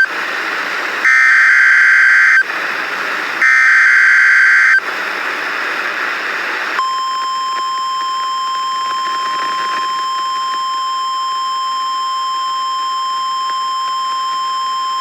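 Emergency Alert System alert on weather radio: two loud digital SAME header data bursts, each about a second and a half long, separated by radio hiss, then about seven seconds in the steady 1050 Hz NOAA Weather Radio warning alarm tone starts and holds.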